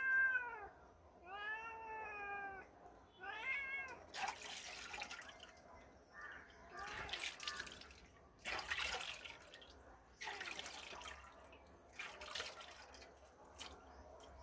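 A domestic cat meows three times in the first four seconds, each call rising and then falling in pitch. After that, water splashes in a steel bowl in several bursts as a cleaned crab is rinsed in it by hand.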